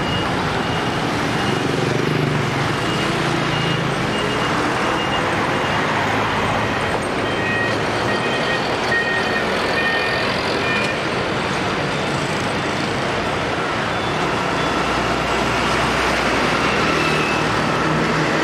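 Busy road traffic: a steady mix of motorbikes, a city bus and heavy lorries passing, with a deeper lorry rumble near the end.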